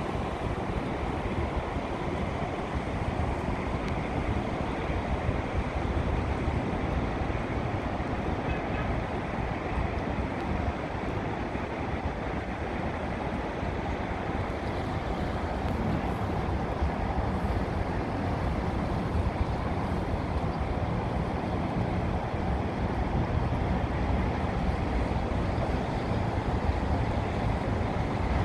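Steady low rumble of a river towboat's engine under wind noise on the microphone, growing slightly louder near the end.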